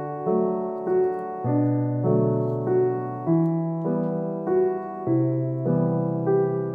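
Background music: a gentle piano melody of evenly paced notes.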